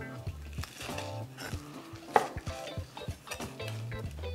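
Chef's knife slicing through fried pork belly on a wooden cutting board, with a few sharp knocks of the blade against the board, the loudest about two seconds in.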